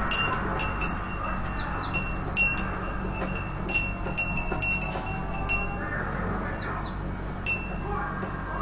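A small bird chirping and twittering in quick, high notes, some sliding downward, over a steady low hum.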